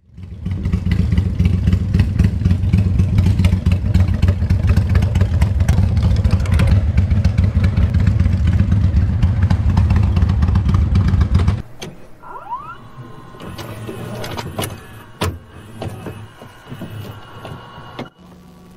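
V-twin cruiser motorcycle engine idling with a steady low rumble, stopping abruptly about twelve seconds in. Quieter small sounds follow, among them a short rising squeak and a sharp click.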